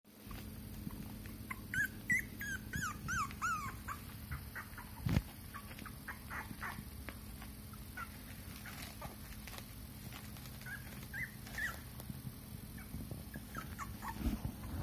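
Pomsky puppy whimpering: a quick run of short, high-pitched squeaks about two seconds in, then scattered single squeaks. A dull thump about five seconds in is the loudest sound.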